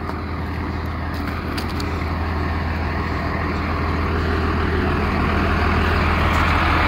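A motor vehicle's engine running steadily with a low hum, growing gradually louder throughout.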